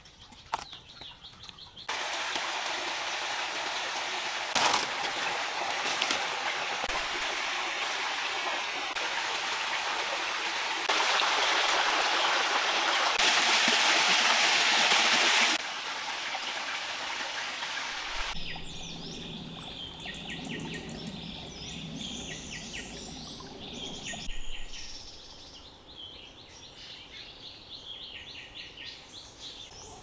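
Forest stream running over rocks, an even rush of water that swells louder for a few seconds midway and then cuts off. After it, birds calling and chirping.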